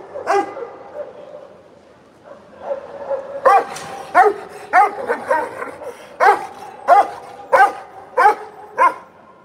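A large black dog on a chain barking repeatedly in short barks, one just after the start and then, after a pause of about two seconds, a run of about nine barks at roughly one and a half a second. The barking is aggressive, from a dog the handler says only the chain keeps from attacking.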